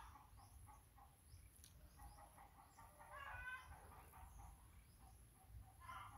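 Faint, distant chicken clucks: short calls near the start and the end, and one longer call about three seconds in, with small high bird chirps between.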